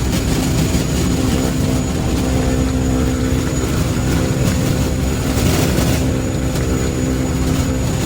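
Turboprop engine running steadily at high idle with the propeller out of feather: a constant drone with a thin high whine above it, during the engine run after a compressor wash.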